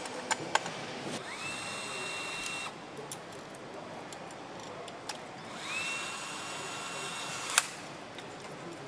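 A handheld power driver tightening fasteners on an engine runs twice, each time spinning up quickly to a steady whine for about one and a half to two seconds. A few sharp metal clicks come near the start, and a loud click ends the second run.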